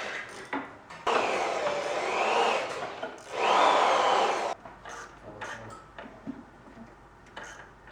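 A hand-held power tool running in two bursts of about two seconds each, its whine rising and falling, followed by a few light knocks and clicks.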